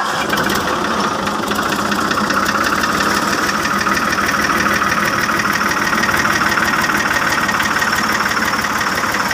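Fiat 480 tractor's three-cylinder diesel engine running steadily, with no revving.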